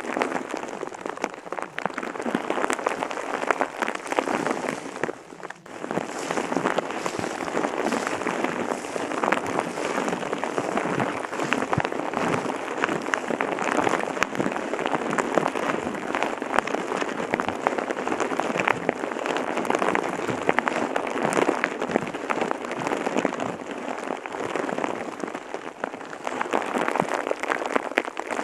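Steady rain, a dense spray of small drop ticks, with a brief dip about five and a half seconds in.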